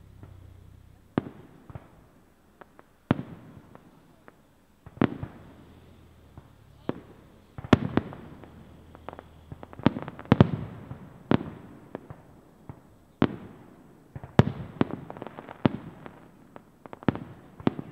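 Aerial firework shells bursting in a string of sharp bangs, each with an echoing tail, at irregular intervals a second or two apart, coming closer together from about seven seconds in.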